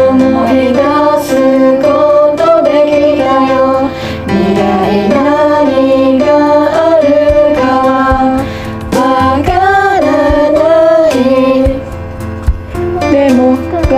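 Pop song playing: a sung melody line over instrumental backing, moving in held, stepping notes.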